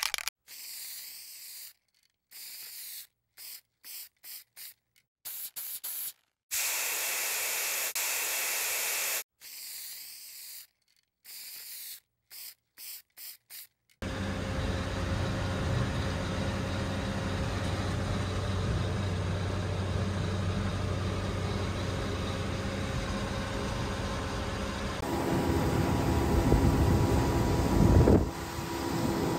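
Choppy short bursts of hissing noise broken by dead silence, then from about halfway a steady drone of the 1979 M817 5-ton 6x6 truck's Cummins NHC 250 diesel engine pulling a loaded grain wagon. Its note shifts and grows louder a few seconds before the end.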